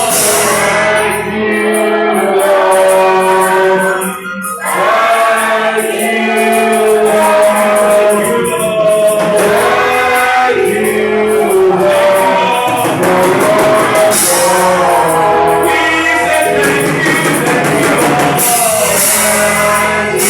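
Voices singing a gospel praise song over instrumental accompaniment, with a brief drop in level about four seconds in.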